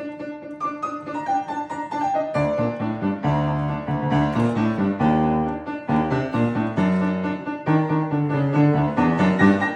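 Piano playing a tune, a melody over changing bass notes with frequent new notes struck.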